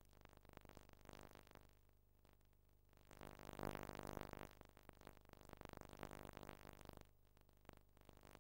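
Faint music, getting louder for a few seconds in the middle and then dropping back.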